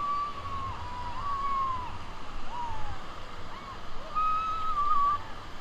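Rush of river water during rafting, with people whooping in long, high calls that slide up and down in pitch, the loudest near the end.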